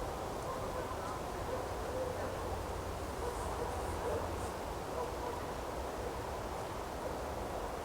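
Wind in a forest: a steady rushing with a low rumble, and a few faint, short distant calls.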